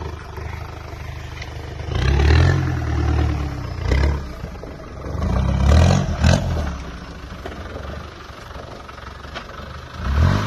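Land Rover 200Tdi four-cylinder turbodiesel engine revving in repeated bursts as the Discovery works through deep mud ruts, easing off for a few seconds before picking up again near the end. A couple of short sharp clatters come in around the louder bursts.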